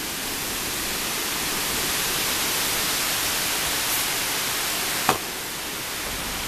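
Steady rain falling, an even hiss, with a brief click about five seconds in.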